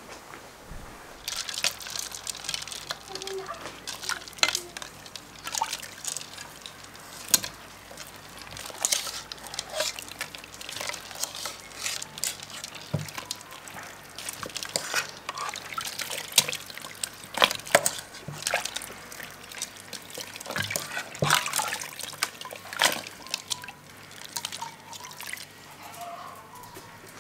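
Hands squeezing and kneading soft butter in a bowl of liquid, giving irregular wet squelches, splashes and drips, starting about a second in. This is the butter being worked to press out the buttermilk after churning.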